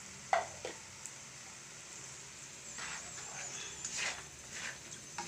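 Spatula scraping and stirring curry sauce in a wok, in a run of short strokes in the second half. Two short sharp sounds come just after the start.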